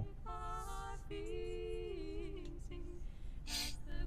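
A song playing, a singer's voice holding long, gently bending notes.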